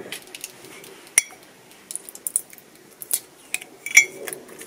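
Ceramic mugs clinking as they are picked up and set down, with two sharp clinks about a second in and near the end. Between them come light ticks and rustling from the heat-resistant tape and paper wrapped around a mug.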